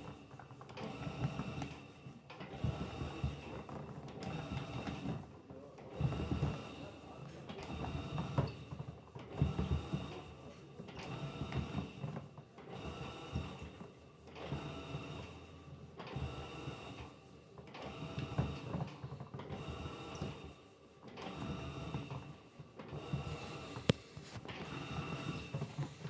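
Electrolux LTC15 top-loading washing machine agitating: its motor whirs in repeated back-and-forth strokes, roughly one every second or so. A single sharp click near the end.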